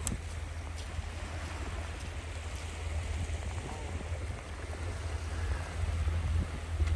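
Wind on the microphone: a steady low rumble under an even outdoor hiss.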